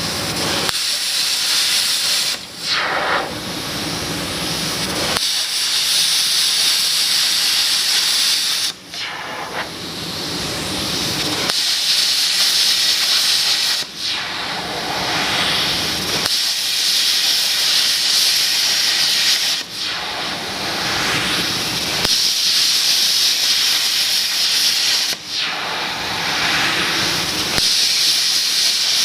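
Hypertherm XPR300 plasma torch cutting steel on a CNC table, a loud steady hiss. The hiss drops out briefly about every five to six seconds, as the arc stops between cuts and fires again.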